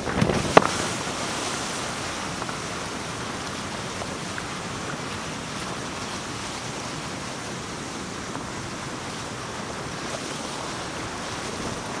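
Whitewater of a steep river rushing over falls and rapids, heard from a kayak running them. There is a burst of splashing with a sharp knock about half a second in, then a steady rush of fast water.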